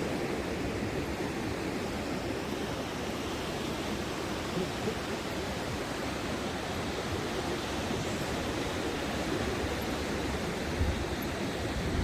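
Steady rush of ocean surf along the beach, with a couple of low thumps near the end.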